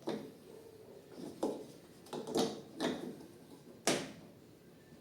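About five separate knocks and clunks, the loudest near four seconds in, from hands-on work on a Brastemp washing machine lying on its side with its belt pulley being tightened.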